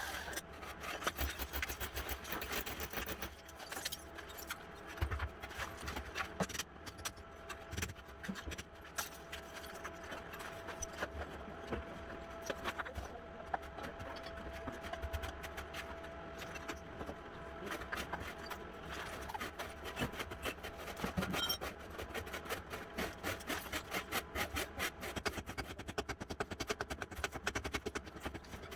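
Wooden flooring being demolished by hand: continuous scraping and rubbing of wood, with many small knocks and clicks throughout.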